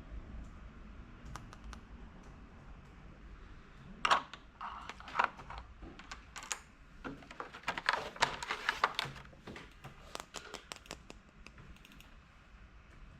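Small hard plastic pieces being handled, with quick clicks and taps that come in clusters from about four seconds in, busiest in the middle and thinning out near the end.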